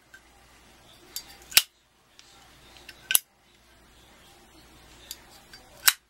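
Lid of a satin-chrome Zippo windproof lighter being snapped open and shut by hand: three sharp metallic clicks spread over the few seconds, with a few fainter clicks of handling between.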